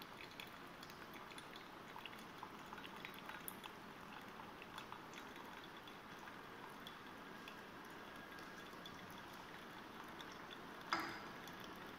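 Hot aqueous acetanilide solution trickling faintly from a glass conical flask through a paper filter in a glass funnel and dripping into a beaker, with scattered small drip ticks. A single short knock near the end.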